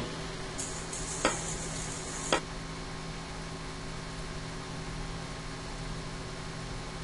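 KitchenAid stand mixer running steadily, its wire whisk beating egg whites into meringue as sugar is added. A high hiss lasts about two seconds near the start, with two light clicks.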